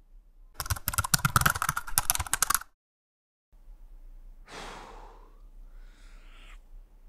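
A man sighs heavily and then lets out a second breathy, falling sigh, acting out grief. Before that comes a loud burst of rapid clattering clicks lasting about two seconds, which cuts off abruptly.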